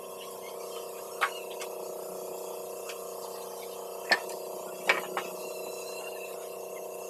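Wooden boards knocking a few times as they are handled and laid down, four short sharp knocks with the loudest two near the middle, over a steady low hum.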